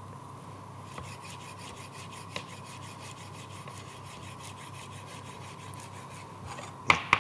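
Chef's knife finely chopping parsley on a cutting board: rapid, even strokes, about five a second, with two louder knocks of the blade near the end.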